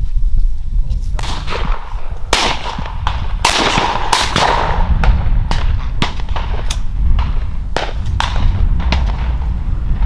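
Shotgun shots from hunters on a dove field: a string of sharp reports at uneven intervals, the loudest around two to four seconds in ringing out, over a steady low wind rumble on the microphone.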